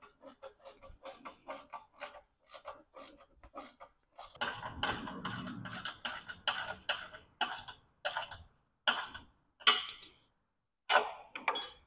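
Hand ratchet wrench clicking in an even run of short clicks, several a second, as quarter-inch bolts are tightened down; the clicks grow louder in the second half.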